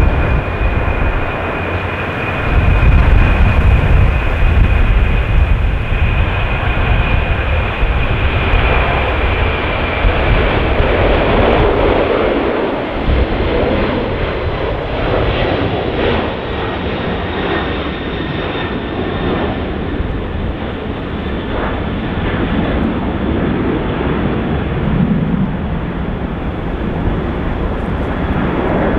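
Jet airliner engines at takeoff power: a loud, continuous rumble with a thin high whine that slowly drops in pitch and fades out over the first ten seconds or so.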